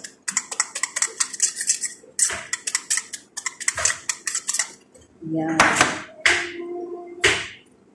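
Dishes and cutlery clinking and clattering in quick, sharp strokes for about four seconds. Near the end come a few short, loud sounds with a steady pitch.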